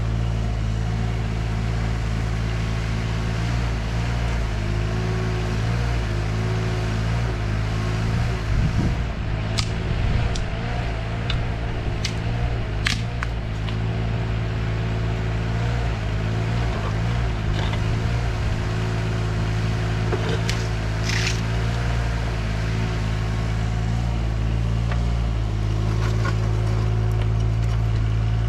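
Yanmar SV17 mini excavator's three-cylinder diesel engine running steadily while it digs, its pitch dipping and recovering briefly with the hydraulic load. A few sharp knocks come about ten to thirteen seconds in and again around twenty-one seconds in.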